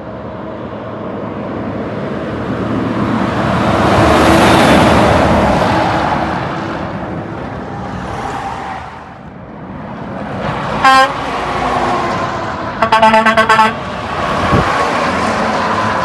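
Semi-truck passing close by on a highway, its rush swelling to a peak and fading away. Near the middle a horn gives one short blast, then about two seconds later a quick string of about seven short toots, as another heavy truck approaches.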